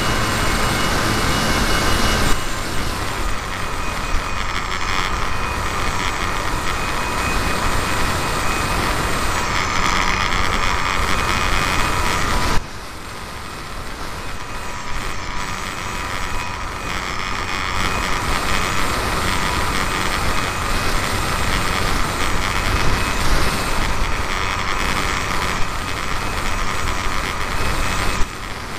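RC model Cessna 182's motor running in flight, a steady whine over wind rushing past the wing-mounted camera's microphone. The level drops suddenly about halfway through, then slowly builds back up, and dips again briefly near the end.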